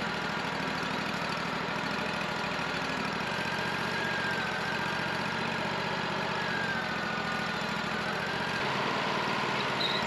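The 26 hp engine of a Wood-Mizer LT40 Hydraulic sawmill running steadily at idle. A faint wavering whine joins it from about three seconds in until near the end.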